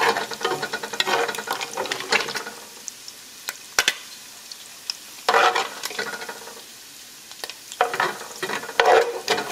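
Bacon and ham pieces sizzling in rendered pork fat in a pot. A utensil scrapes against the pot in three loud bursts and clicks a few times as the pieces are scooped out.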